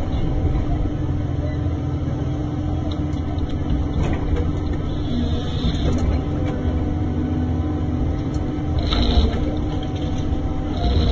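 Komatsu 931XC forest harvester working steadily under load, its diesel engine and hydraulics running as the C144 head grips and processes a tree. A brief sharper noise rises about nine seconds in.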